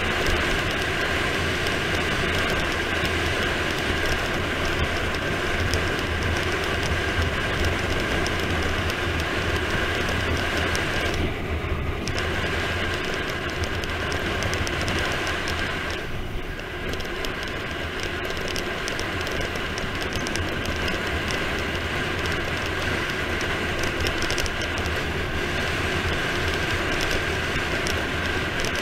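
Steady wind buffeting and tyre-on-asphalt road noise during a fast bicycle descent, heard on a bike-mounted camera's microphone. It eases briefly twice about midway.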